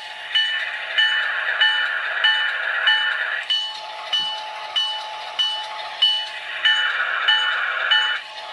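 Diesel locomotive bell from a Soundtraxx Tsunami sound decoder with the GE sound set, ringing steadily just under twice a second over the engine idle, played through the small speaker of an HO-scale Kato U-boat. A rushing sound swells twice, about a second in and again near the end.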